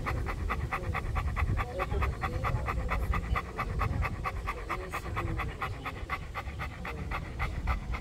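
Golden retriever panting close to the microphone: rapid, even breaths, about five or six a second, over a low rumble.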